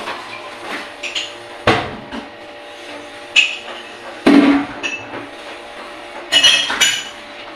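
Kitchen things being handled and set down on a counter: a few separate sharp knocks and clatters, the loudest about four seconds in, and a brief rattling clatter near the end.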